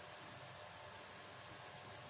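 Faint, steady hiss of room tone and recording noise, with no distinct sound event.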